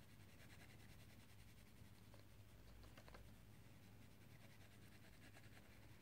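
Near silence: faint scratching of a wax crayon shading on paper, in short spells, over a low steady hum.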